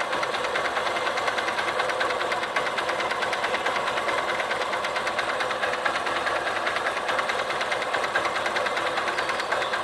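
Motorcycle engine running steadily with a fast, even ticking rattle, a noise the owner cannot explain and is asking about.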